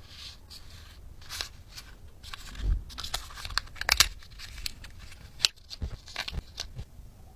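Mystery-ball toy packaging being handled and torn open by hand, with crinkling, tearing and sharp clicks and crackles. It is loudest about four seconds in.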